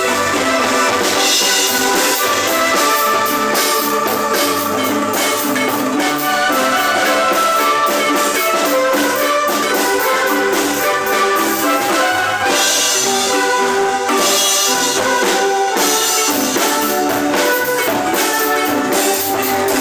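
Guatemalan marimba ensemble playing a tune, with rapid repeated mallet strokes on the keys and a drum accompaniment.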